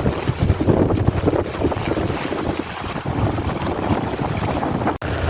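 Gusty wind buffeting the microphone over a heavy monsoon downpour, with a brief dropout near the end.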